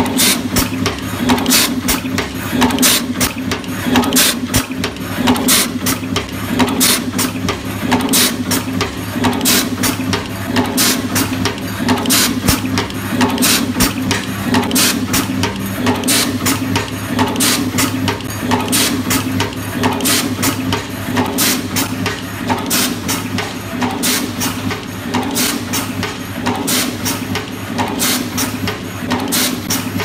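Automatic cable strip-cut-crimp-tin machine running through its cycle: a steady hum under rapid, repeated sharp clicks and clacks from its moving mechanism, several a second.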